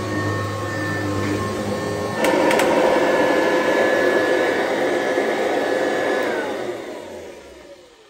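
Kirby Classic III upright vacuum running steadily with a constant motor whine. About two seconds in there is a click and the sound gets louder and fuller. Near the end the whine falls in pitch and fades as the motor winds down.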